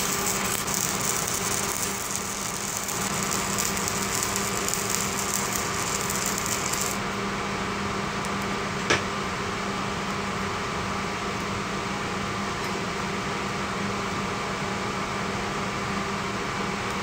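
Stick (electrode) arc welding on steel: the arc crackles and sizzles for about the first seven seconds, then stops as the weld is finished. A steady machine hum with a few steady tones runs underneath, and there is one sharp click about nine seconds in.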